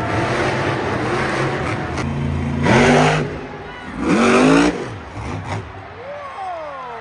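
Monster truck's supercharged V8 engine revving hard in two loud surges, a second or so apart, with the revs falling away near the end.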